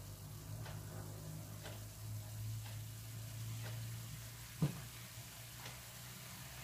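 Wooden spoon stirring diced pork in a stainless steel skillet, with faint scrapes roughly once a second and one sharper knock of the spoon on the pan about four and a half seconds in, over a low steady hum.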